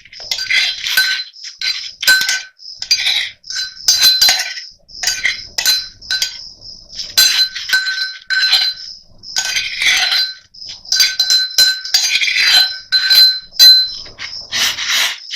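A metal spoon clinks and scrapes against a steel cooking pot in quick, irregular strokes, a few a second, each briefly ringing at the same couple of pitches. This is crushed raw onion being worked into a pot of just-boiled water.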